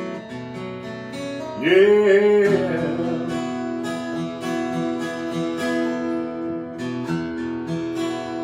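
Strummed acoustic guitar with a man singing one long, bending "yeah" about two seconds in; after it the guitar plays on alone between verses of a country song.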